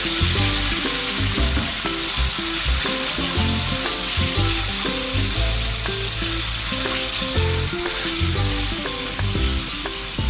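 Sliced beef tenderloin sizzling steadily in hot oil in a wok as it is stir-fried with a silicone spatula, the raw meat searing with shallots, garlic and chilli.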